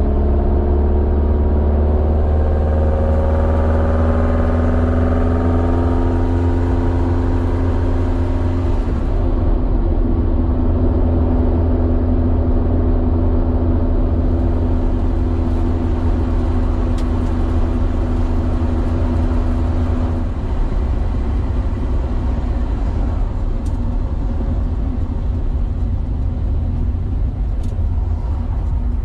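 Inside the cabin of a VW Beetle, its air-cooled 2054cc stroker flat-four on dual Weber IDF 44 carburettors pulls with a slowly rising pitch, holds a steady cruise, then about two-thirds of the way through the engine note drops away as the driver lifts off and the car slows, leaving road rumble.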